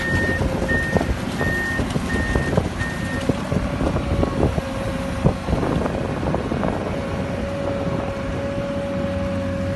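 Komatsu amphibious excavator running, with its diesel engine, scattered knocks and a steady whine that grows stronger about seven seconds in. Its warning alarm beeps five times in the first three seconds.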